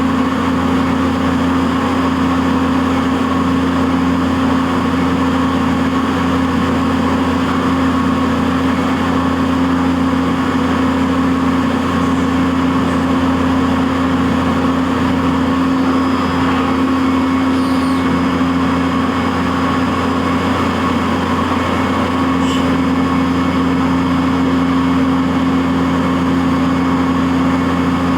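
CNC vertical milling machine running while it mills Delrin, a loud, steady hum. A few faint brief high chirps come and go in the second half.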